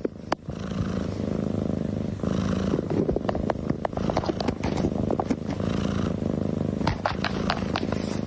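Domestic cat purring loudly and steadily close to the microphone, starting about half a second in, with scattered light clicks over the purr.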